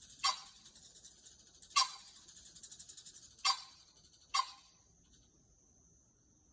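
Green pheasant calling with four short, harsh calls a second or so apart, over a steady high buzz in the background.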